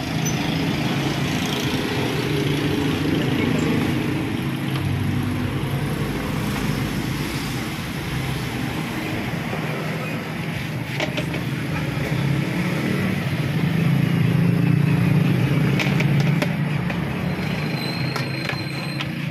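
Road traffic, with motorcycles and cars passing; the engine sound swells about four seconds in and again near fifteen seconds. A couple of sharp clicks in the second half.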